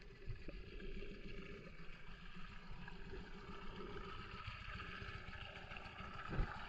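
Muffled underwater ambience picked up by a camera held below the surface of a clear spring-fed river: a steady low water rumble and sloshing, with one dull thump about six seconds in.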